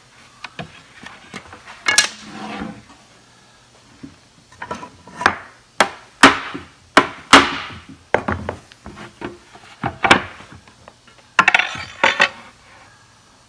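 Glued-up wooden shaker door, still in its bar clamps, knocked several times against a hard workbench to rack the slightly out-of-square frame into square: a string of sharp wooden knocks, loudest in the middle, then a short clatter as a steel square is set against the frame near the end.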